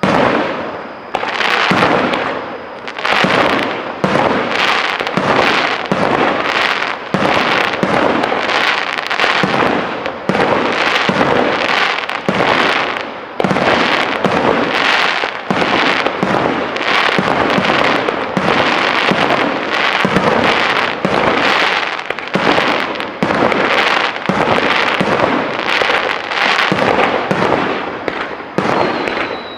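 Aerial firework shells bursting in a dense, continuous barrage with crackling between the booms: the finale of a large display. A falling whistle comes near the end.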